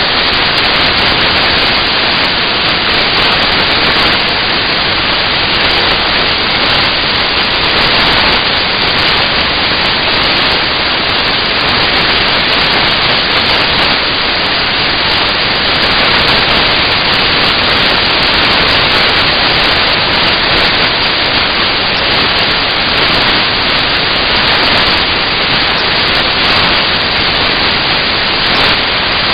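Loud, steady hiss, even throughout, with no distinct knocks, clicks or tones.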